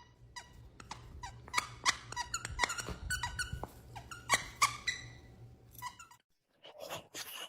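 A dog whining in a rapid series of short, high, squeaky cries, many of them falling in pitch, the sound of a frightened dog. The cries cut off suddenly about six seconds in.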